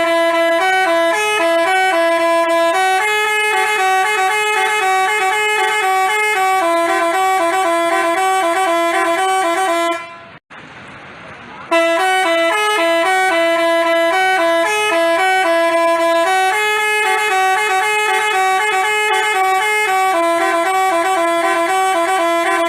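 Basuri-type telolet bus horn playing a stepping multi-note tune. It cuts off for about a second roughly ten seconds in, then plays the same tune again.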